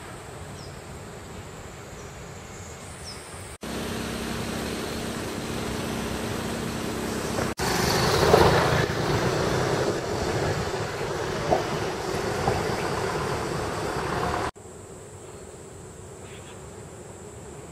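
Outdoor street ambience in several short clips joined by abrupt cuts: a steady wash of distant road traffic, louder in the middle clips, and a faint steady high whine in the first and last.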